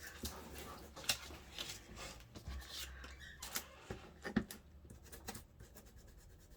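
Ink being dabbed through a stencil onto paper by hand: irregular soft taps, scuffs and paper rustles, with a few sharper clicks about a second in and near the middle.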